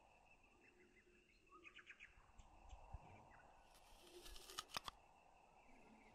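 Faint birds chirping, then about four seconds in the crisp crackling crunch of teeth biting into an apple, sharpest near the end of the bite.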